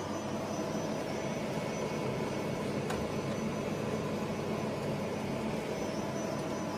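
Steady whirring hum from a powered Fanuc spindle amplifier and spindle motor on a test bench, with a few constant electrical hum tones. A faint click comes about three seconds in.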